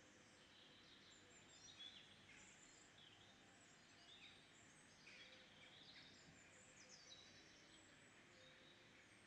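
Near silence with faint, scattered bird chirps and short whistles.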